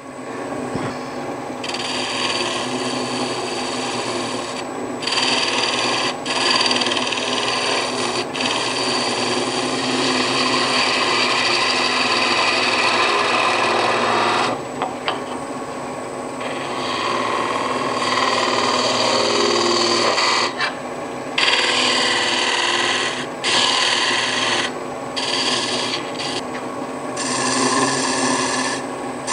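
A turning gouge cutting big leaf maple spinning on a wood lathe: a continuous scraping hiss of the cut, broken by short pauses when the tool comes off the wood, over the lathe's steady hum.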